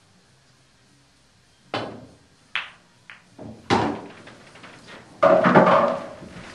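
A pool shot: the cue strikes the cue ball, then a sharp click as it hits the other balls, and more knocks as the balls hit each other and the cushions. About five seconds in comes a longer, louder clatter.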